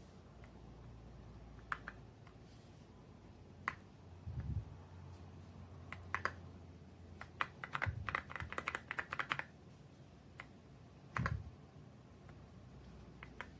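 Keystrokes on a YUNZII X98 mechanical keyboard with pre-lubricated switches: scattered single key presses, a quick flurry of typing a little past the middle, and a couple of deeper knocks.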